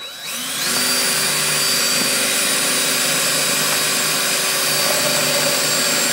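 DeWalt cordless drill with a small step bit cutting a pilot hole through two layers of the metal PCM housing. The drill rises in pitch within the first second, then runs at a steady whine.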